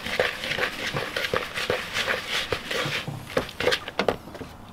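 Spoon stirring a thick batter of flour, egg and grated courgette in a plastic mixing bowl: repeated scraping and knocking strokes, about three a second, dying away near the end.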